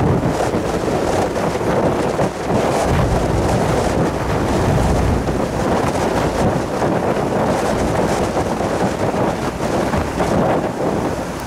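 Wind buffeting the microphone over the steady rush of water foaming along the hull of a car ferry cruising at speed, with a low rumble underneath.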